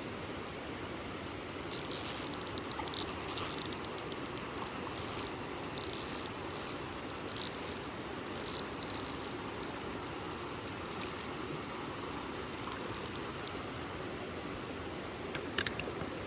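Mountain stream running steadily, with an irregular high-pitched ticking and rattling over it from about two seconds in until about three seconds before the end.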